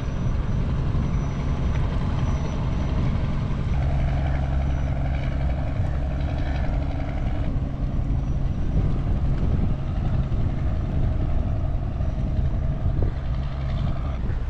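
A fishing trawler's engine running with a steady low drone as the boat motors along the channel.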